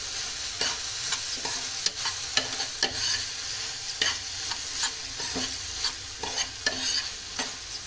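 A spatula stirring and scraping through moong dal, vegetables and powdered spices frying in a pressure-cooker pot, with a steady sizzle under it. The strokes knock against the pot about twice a second.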